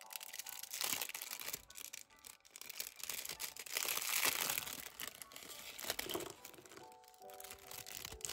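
A small clear plastic bag crinkling and rustling as it is handled and pulled open, loudest around the middle, over soft background music.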